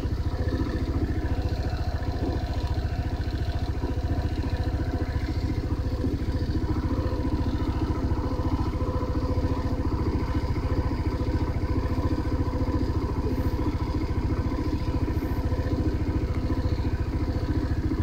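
Motorcycle engine running steadily at an even road speed, heard up close from the bike, with a low rumble under it.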